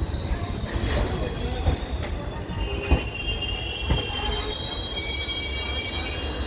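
Indian Railways train's wheels squealing on the rails in several high, steady tones as it slows along the platform, over a low rumble, with two sharp knocks, about three and four seconds in, as the wheels cross rail joints.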